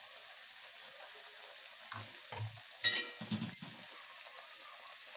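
Tomato soup simmering in a kadhai with a steady sizzle. Between about two and four seconds in, a steel ladle stirs it, with a few knocks and sharp clinks against the pan.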